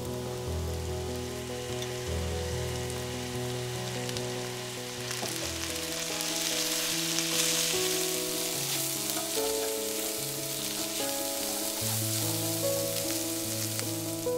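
Diced carrots and green beans sizzling in oil in a wok while being stirred with a spatula; the sizzle grows louder about five seconds in. Soft piano music plays underneath.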